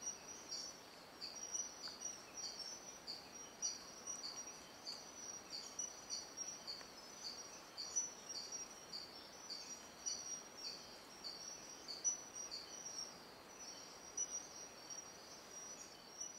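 Rainforest insect, likely a cricket or katydid, chirping in a steady, evenly spaced, high-pitched pulse, about three chirps a second, over faint forest hiss.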